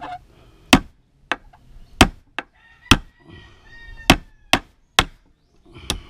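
Claw hammer striking a nail into a wooden board: about eight sharp, unevenly spaced blows, some hard and some light, the uneven hammering of a beginner.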